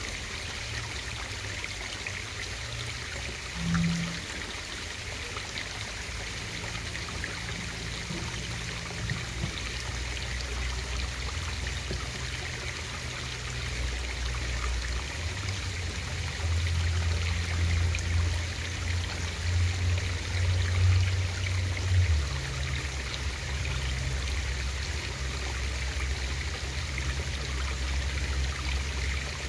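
Steady trickling, flowing water in a pond, heard through a camera submerged in it, with a low uneven hum underneath that grows louder in the middle.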